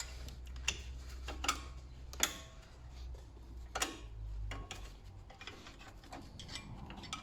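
Light metal clicks and taps of a brake caliper's spring clip being worked into place by hand, a handful spread irregularly over several seconds, over a low steady hum.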